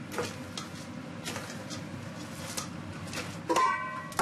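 Light clinks and knocks of stainless-steel pots and utensils over a steady kitchen hum, with a louder ringing clatter near the end.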